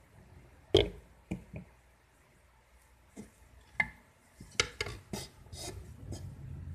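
Small trophy with a white marble base and glass plaque being handled and knocked against a wooden shelf: a series of sharp clicks and knocks, the loudest about a second in, with a quick cluster of them between about four and six seconds.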